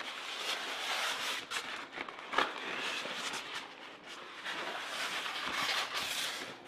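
A box cutter slitting the tape along a sealed cardboard box, mixed with the box scraping and knocking on the counter as it is tipped and turned, with a sharp knock about two and a half seconds in.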